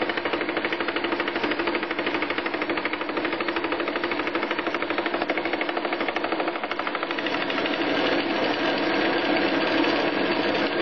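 Fly cutter spinning on a lathe, cutting a tooth space in an aluminium gear blank fed into it from the top down on a vertical mill slide. Its interrupted cut makes a fast, even rattle of strikes that grows a little louder about two thirds of the way in.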